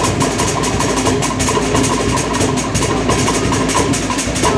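Cook Islands drum ensemble playing a fast, driving rhythm on wooden slit log drums (pate) with a large skin bass drum (pa'u), the strokes coming too quickly to count.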